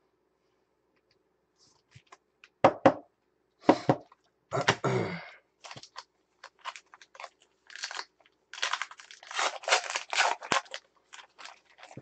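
Crinkling and crackling of plastic as baseball cards are handled and sleeved, in irregular bursts: a few sharp crackles around three to five seconds in, then a denser run of crinkling near the end.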